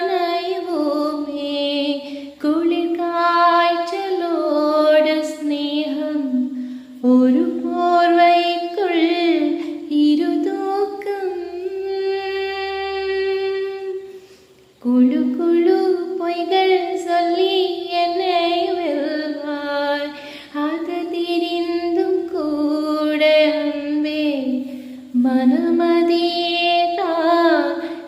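A woman singing a Tamil song in long, held, wavering phrases, with a brief pause about halfway through.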